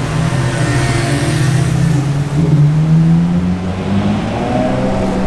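Lamborghini Huracán STO's naturally aspirated V10 running at low revs, its note climbing slowly under light throttle, easing off about four seconds in, then rising again.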